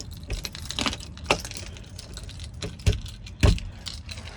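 Keys jangling, with a run of sharp clicks and knocks, the loudest two about three seconds in.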